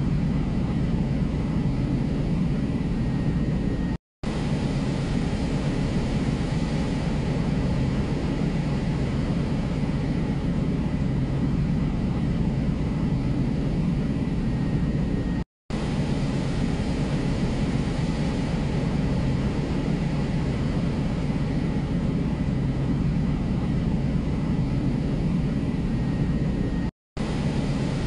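Steady low rushing rumble of corn pouring from a ship loader's spout onto the grain pile in a bulk carrier's hold, with a faint steady high tone over it. The sound cuts out completely for an instant three times.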